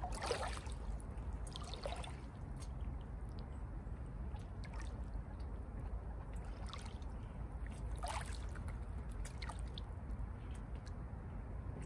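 Small waves lapping and splashing at the lake's edge close to the microphone, over a steady low rumble. There are a few sharper splashes near the start and again around eight seconds in.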